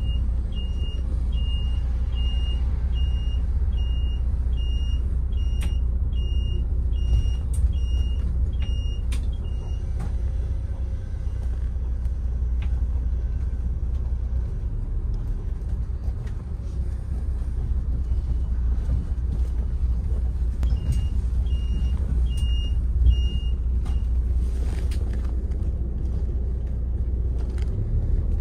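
Diesel engine of a tour coach heard from inside the cabin, a steady low rumble as the coach pulls away and drives. A high electronic beeper pulses about twice a second for the first ten seconds, then again for a few seconds about twenty seconds in.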